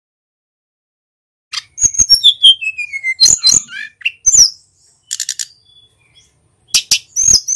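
Male sulingan gunung songbird in full song: after a silent start, a rapid run of high chips and whistles, including a whistle sliding down in pitch about a second in, then, after a short pause, another fast burst of sharp notes near the end.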